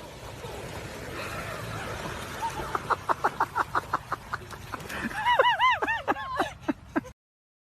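High-pitched laughter: a quick run of short 'ha' sounds about four a second, breaking into longer squealing cries that rise and fall, then cut off suddenly near the end.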